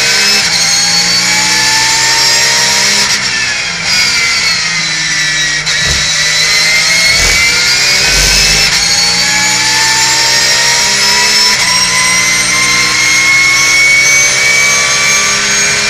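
Porsche 911 GT3 Cup car's flat-six engine heard from inside the cockpit at racing speed. It revs up through the gears, drops in pitch under braking between about four and six seconds in, then accelerates hard again, ending in a long rising pull. A few low thumps come in the middle.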